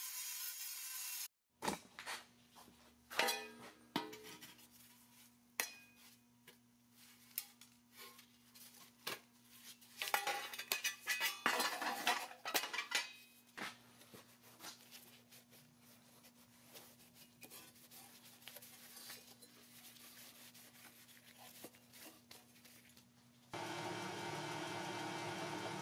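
Pressed-steel toy crane parts clinking and knocking against each other and the workbench as they are handled, with a dense run of clinks in the middle. It opens with a rotary tool's abrasive bit grinding steel, which cuts off after about a second. Near the end a steady hiss from the powder coating spray starts.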